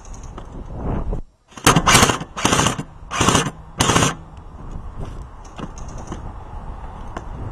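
Airsoft gun fired in about five short bursts, each a fraction of a second long, over two to three seconds. The sound cuts out briefly just before the first burst.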